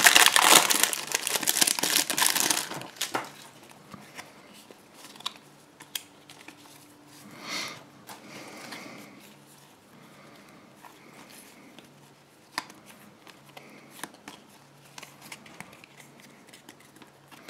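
A foil Force Attax trading-card booster pack is torn open and crinkled, loudly, for about the first three seconds. After that the cards are handled and shuffled quietly, with occasional light clicks.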